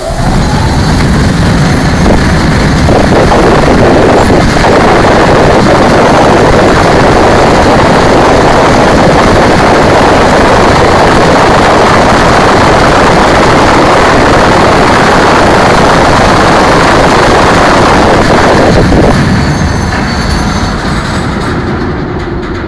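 Coal pouring out through the open bottom doors of a 100-ton hopper car into the unloading pit: a loud, steady rush that starts suddenly, holds, and dies away over the last few seconds as the car runs empty.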